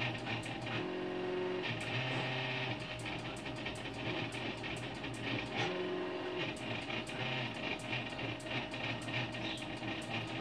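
NEMA 17 stepper motors of a homemade belt-driven laser engraver moving the head back and forth while engraving: steady whining tones that switch pitch and start and stop every second or so, over a fast run of ticks.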